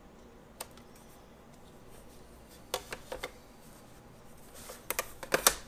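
Drafting tools being handled on a drawing board: a clear plastic triangle and a ruler are picked up, set down and butted together. There is one light click about half a second in, a few sharp taps in the middle, and a quick run of louder clacks near the end.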